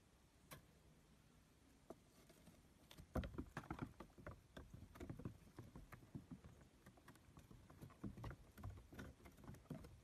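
Small goat hooves tapping and clattering on wooden boards: one tap about half a second in, then irregular bursts of knocks from about three seconds in as the kids step and hop about.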